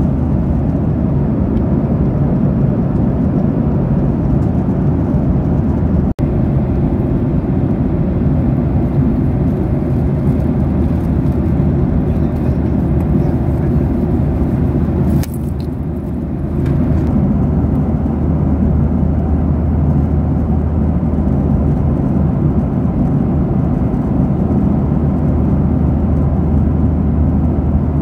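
Steady airliner cabin noise in flight: a constant, loud drone of jet engines and rushing air, heaviest in the low range. It dips slightly for a couple of seconds about halfway through.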